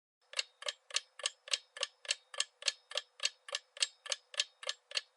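Clock-style ticking sound effect, about three and a half even ticks a second, starting a moment in: a quiz countdown timer running while the viewer picks an answer.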